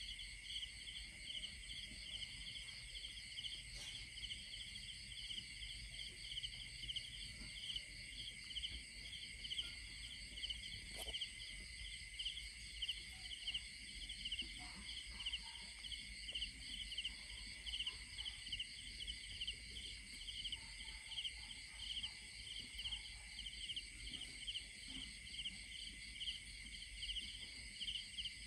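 Night insects trilling in a steady chorus, several pitches layered at once, the strongest a fast, even pulsing chirr. A few faint ticks sound here and there.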